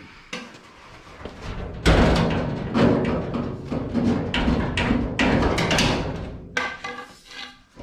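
Background music with heavy percussion, coming in suddenly about two seconds in.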